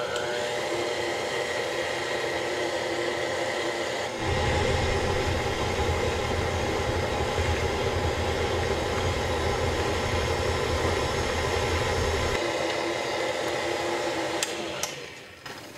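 KitchenAid tilt-head stand mixer running steadily, its flat beater creaming butter and sugar in the steel bowl. A deeper rumble joins for several seconds in the middle, and the motor winds down near the end as it is switched off.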